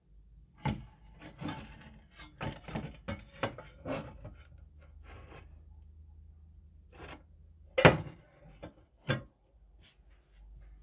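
Old rusty steel first aid tin handled on a wooden table: scraping and light metallic clatter of the tin and its hinged lid, then a sharp knock about eight seconds in, the loudest sound, and a smaller one about a second later.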